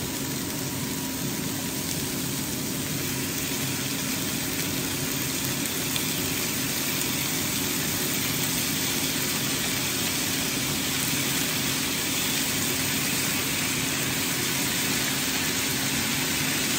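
Steady whir and hum of a countertop air fryer's fan running, with chicken, peppers and onion sizzling in a frying pan beneath it.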